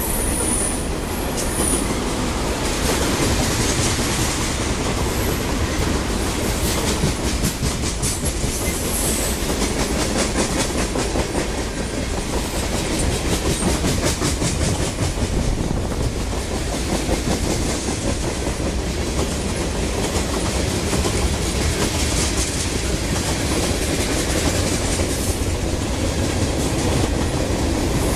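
Freight train cars (tank cars, covered hoppers, autoracks and boxcars) rolling past at speed: a steady rumble of steel wheels on rail with a clickety-clack over the rail joints.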